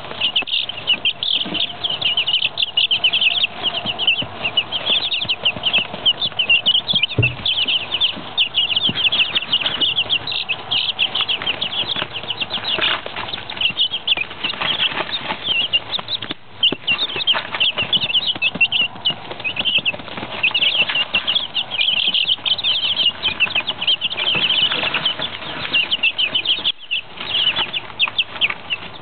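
A brood of week-old Jersey Giant chicks peeping without pause, many short, high calls overlapping.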